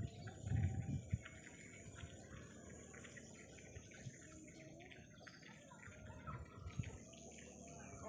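Faint outdoor ambience: small birds chirping in short calls over a steady high insect hum, with low rumbles of wind on the microphone in the first second or so.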